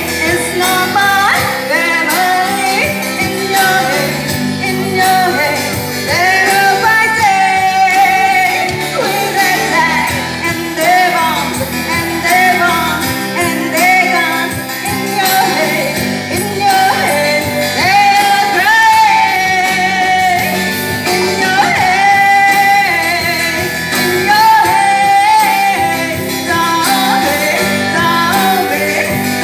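A woman singing loudly into a microphone with acoustic guitar backing, played live through a small street PA.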